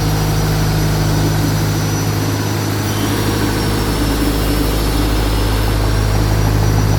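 Jaw crusher machine running steadily with a loud, constant low hum and a churning rattle over it.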